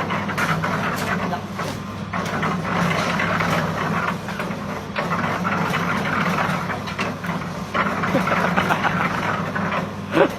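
Sand-grinding machine running steadily: a constant low engine hum with a dense clatter over it.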